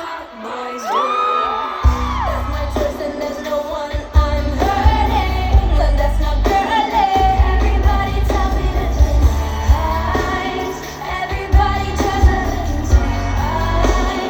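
Live K-pop song at a concert sound check: female vocals over a heavy bass beat. The bass is thin at first and comes back in strongly about two seconds in.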